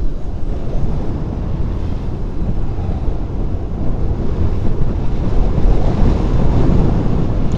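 Wind buffeting the microphone and steady road rumble while riding a Hero Electric Optima electric scooter flat out at its top speed of about 46 km/h. The rushing noise grows slightly louder toward the end.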